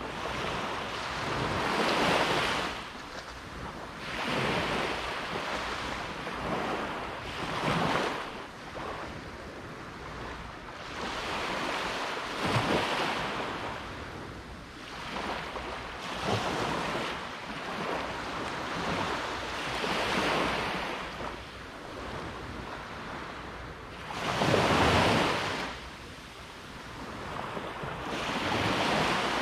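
Ocean waves breaking and washing up the shore, a surge of surf every few seconds, the biggest one about 25 seconds in.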